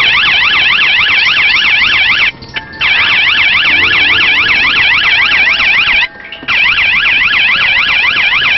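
Police car siren sounding in a fast yelp, with rapid up-and-down sweeps in pitch. It cuts out briefly twice, about two seconds in and about six seconds in.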